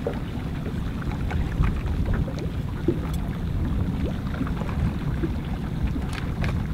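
Wind buffeting the microphone out on open water: an uneven low rumble, with a few faint ticks scattered through it.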